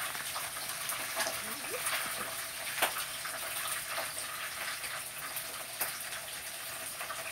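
Whole snapper frying in hot oil in a skillet: a steady sizzle with sharp crackling pops now and then.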